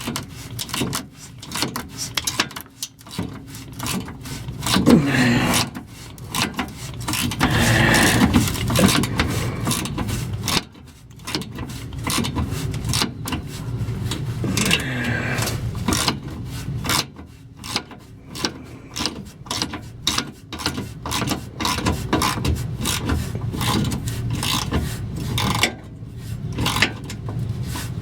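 Hand socket ratchet clicking in quick runs as it turns out a fuel tank strap bolt.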